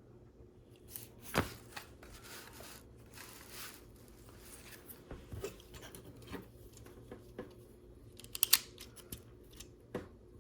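Plastic Lego bricks being handled: scattered sharp clicks and light knocks, with a soft rustle about two seconds in and a quick cluster of clicks near the end.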